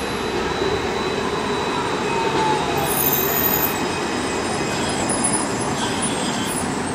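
Alstom Citadis C2 Class tram rolling in along street track and slowing, with a faint whine that falls in pitch about two seconds in.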